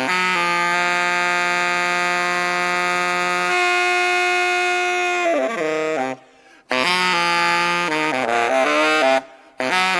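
Background music: a lead melody holding long notes, the first held for several seconds before sliding down, with short breaks between phrases.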